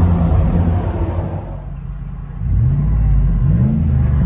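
2005 Dodge Dakota's 4.7L Magnum V8 through a dual exhaust with a Jones JFP glass pack and no resonator, dropping back to idle and then revved twice in quick succession.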